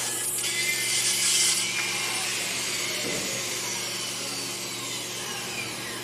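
Corded circular saw cutting a kerf groove across plywood, then released, its blade spinning down with a slowly falling whine from about two seconds in.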